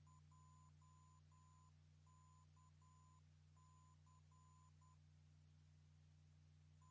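Near silence: a faint steady hum and a thin high whine, with a faint beep pulsing on and off in short and long tones, like Morse code. No jet engine noise is heard.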